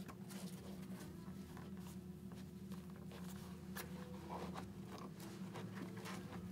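Faint rustling and scattered small clicks of hands handling a motorcycle helmet's chin strap and cheek pad, over a steady low hum.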